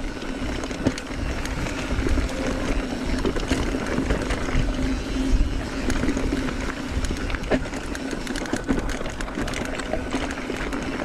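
Mountain bike ride over a loose, rocky trail: tyres crunching over stones and the bike clattering with many small knocks, over a steady low hum and rumbling wind noise.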